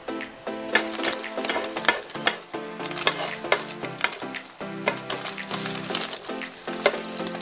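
Egg frying in hot oil in a pan, sizzling with sharp spits and crackles, while a spatula scrapes and pushes it across the pan. The sizzle sets in about a second in; background music plays underneath.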